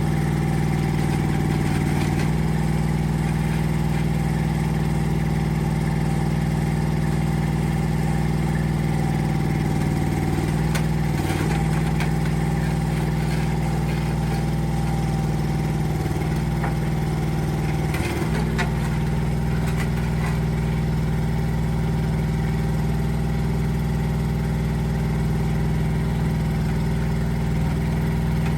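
Rippa R10 Eco mini excavator's engine running steadily, its note dipping briefly three times, near the middle and again twice a little later.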